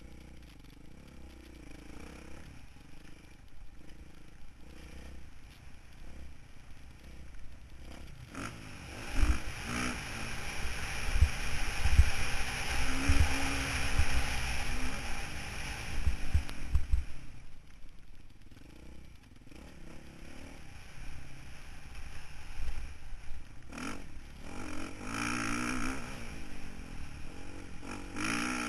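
Motocross bike engine running and revving under a rider on a dirt track, with wind rushing over the camera's microphone. Thumps from the bike hitting bumps are heaviest in the loud stretch from about 8 to 17 seconds in.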